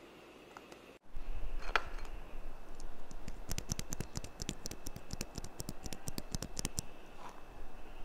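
Plastic mechanical keyboard switch being handled with the fingers right at the microphone: scratching, then a quick, irregular run of small sharp clicks through the middle.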